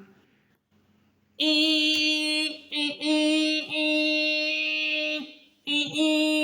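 A person's voice imitating a machine with long, steady-pitched 'eee' drones. There are four of them, the first starting about a second and a half in, with short breaks between.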